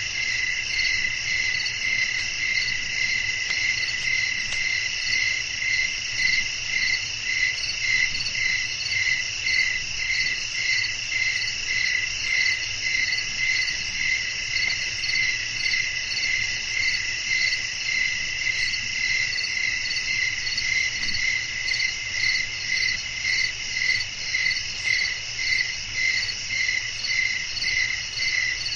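Night chorus of crickets chirping: several steady high trills layered together, one of them pulsing in an even rhythm a little over once a second.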